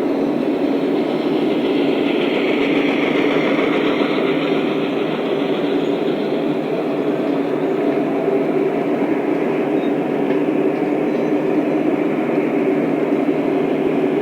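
Lionel O-scale model train running along its track, a steady, unbroken rolling and motor noise.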